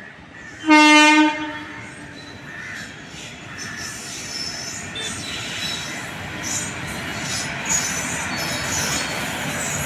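Electric locomotive hauling an express train sounds one short horn blast about a second in, the loudest sound. The train then rolls closer and past with steadily building rail noise and intermittent high wheel squeal.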